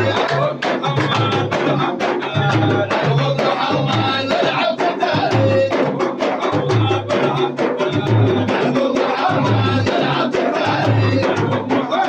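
Madih music without singing: drums keep a steady beat of low strokes, about two a second, with sharper hand-percussion hits between them and some faint pitched sound above.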